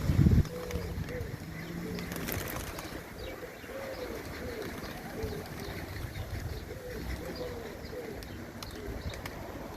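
Pigeons cooing over and over, short rising-and-falling calls one after another. A loud low thump comes right at the start.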